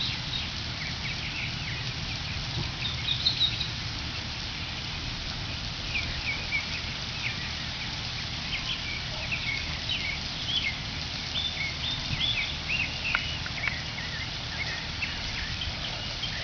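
Birds chirping in short scattered calls over a steady background rumble, with no voices.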